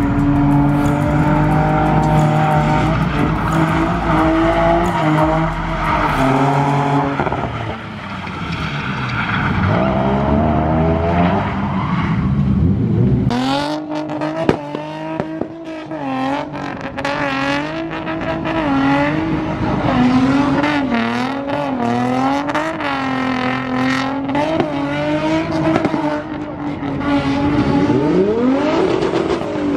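Drift cars sliding with tyres squealing: first a Nissan 350Z's V6 held at high revs, dropping off and climbing again, then a second car's engine revving up and down in quick waves as the driver works the throttle through the slide, rising again near the end.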